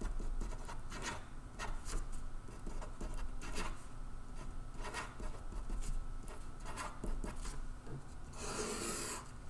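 Sharpie marker writing on paper: short scratching strokes as letters and circles are drawn, with a longer, louder rub across the paper near the end.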